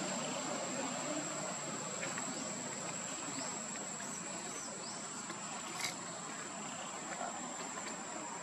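Insects buzzing steadily in one high tone over a background hiss, with a few faint short chirps and a single sharp click about six seconds in.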